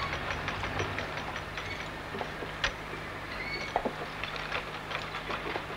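Cable winch hauling a heavy sandstone grindstone up a loading ramp over wooden rollers: a steady low hum with many irregular clicks and knocks.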